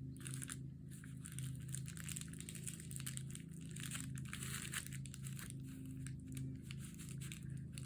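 Irregular crinkling and rustling of a plastic mailer envelope and paper being handled, over a low steady hum.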